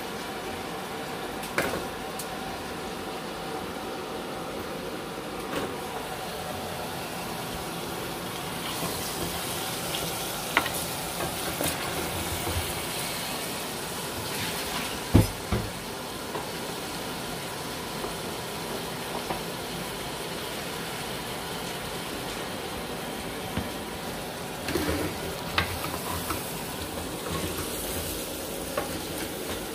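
Curry sizzling and simmering in an aluminium pot on a gas hob, with a wooden spoon stirring and knocking now and then against the pot; one sharper knock about halfway.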